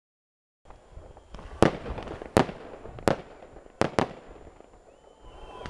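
Fireworks salute shells bursting overhead: five sharp bangs about three-quarters of a second apart, the last two close together, with a low rumble between them. A thin rising whistle comes in near the end.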